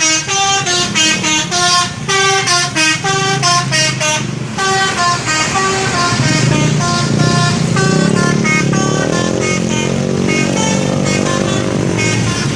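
Telolet multi-tone musical bus horn playing a quick tune of short stepping notes, the notes thinning out after about eight or nine seconds. A low rumble with a rising pitch sits underneath the last notes.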